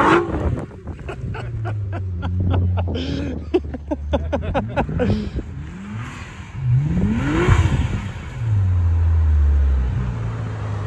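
Nissan GT-R's twin-turbo V6 revving hard several times between stretches of steady running, with the strongest rev about two-thirds of the way in. A quick run of sharp cracks comes in the first half.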